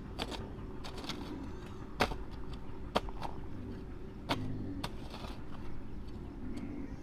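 Irregular sharp clicks and knocks of hand work in a garden bed, about six in all, over a steady low hum.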